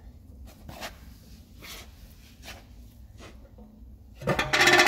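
Scattered light knocks and clicks as a car wheel is lifted onto the hub and a wheel bolt is started by hand. A louder, rapid rattle comes near the end.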